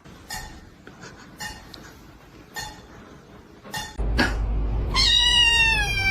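Cat meowing: one long, slightly falling meow near the end, after a few faint short sounds.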